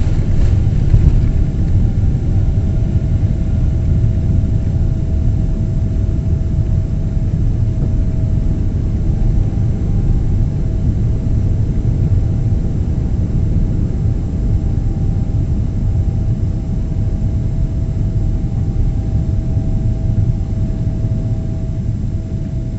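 Cabin noise of a Boeing 777-300 at takeoff thrust as it lifts off and climbs: a loud, steady low rumble from the jet engines and airflow, with a thin steady hum through it. It eases slightly near the end.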